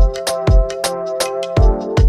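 Electronic background music: sustained synth chords over a kick drum that hits about twice a second, with crisp percussion hits in between.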